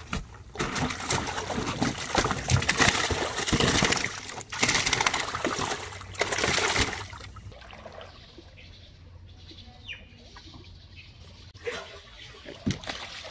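Caught fish thrashing and splashing in the water of a tarp-lined boat hold, loud and continuous for about the first seven seconds. After that the water goes quieter, with a couple of small splashes near the end.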